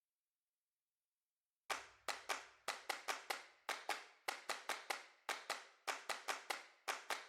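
Near silence, then from nearly two seconds in a quick rhythmic run of sharp clap-like percussion hits, about four a second, opening a music track.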